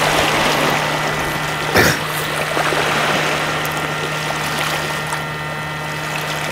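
Sea water washing against a rocky shore, an even hiss-like wash, with one brief sharp sound about two seconds in and a faint steady low hum underneath.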